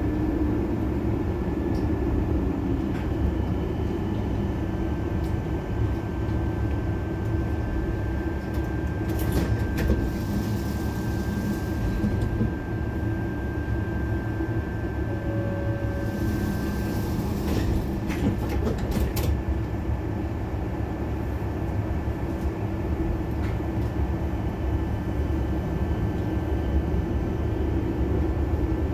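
A tram running along its track, heard from inside the car: a steady low rumble with a thin, steady whine over it. Twice near the middle come a few seconds of hissing, with a few sharp clicks.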